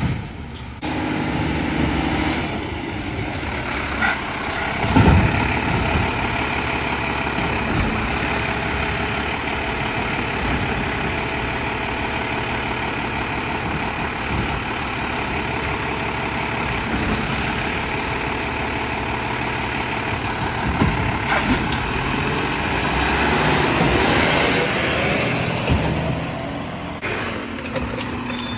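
Mack LEU garbage truck with a Labrie Helping Hand side-loader body running, its engine and hydraulics giving a steady whine. There is a heavy thump about five seconds in, and the sound swells for a couple of seconds near the end.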